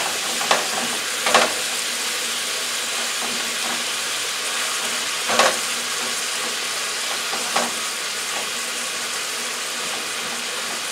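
Ground beef sizzling steadily in oil in a metal skillet, with a spatula scraping and knocking against the pan a few times as the meat is stirred and pressed down.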